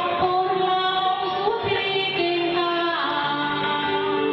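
A woman singing a song into a microphone over instrumental backing music, holding long notes.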